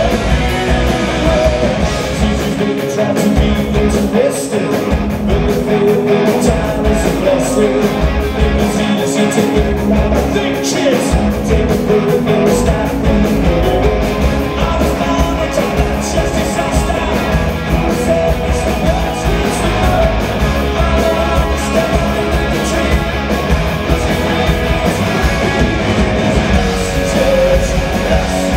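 Live rock band playing a song: electric guitar, bass guitar and drums, with a male lead singer.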